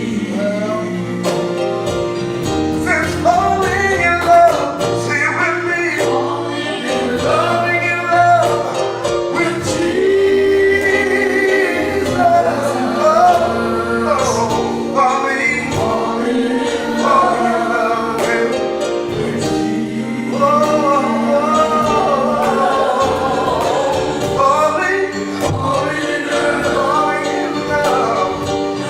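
Live gospel worship music: voices singing a slow song together over steady instrumental accompaniment.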